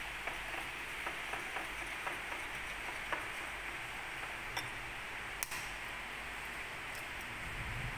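A metal spoon clinking now and then against a ceramic bowl while a mixture is stirred, in scattered single ticks at uneven intervals over a steady background hiss.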